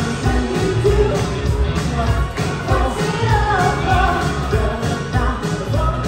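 Loud pop music with a singing voice over a steady, heavy bass beat.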